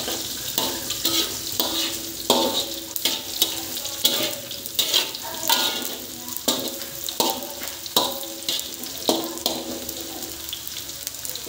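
Tempeh sizzling in hot oil in a metal wok while a metal spatula stirs it, scraping and knocking against the pan every half second or so, each knock ringing briefly.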